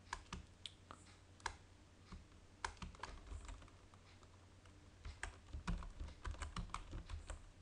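Keystrokes on a computer keyboard: a few scattered key presses at first, then a quicker run of typing from about five seconds in.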